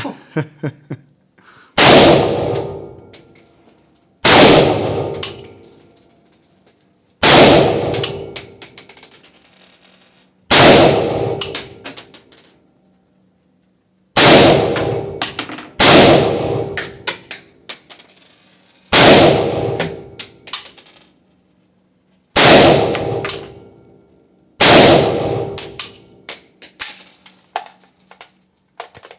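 Nine single gunshots from a real firearm, fired one at a time every two to three seconds. Each shot rings out and fades over a second or two, with small clicks and clinks after most of them.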